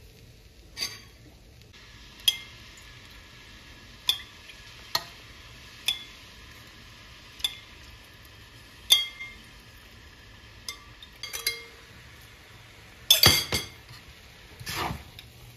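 Metal spatula and spoon clinking and scraping against a steel pan while stir-frying sticky rice: single sharp ringing strikes a second or two apart, with a quick run of strikes near the end.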